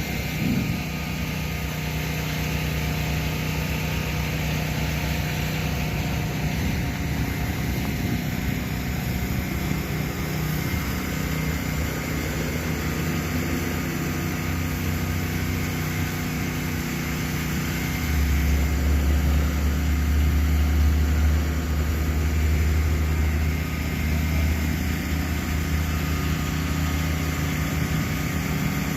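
A small engine running steadily with an even hum, growing a little louder for a few seconds past the middle.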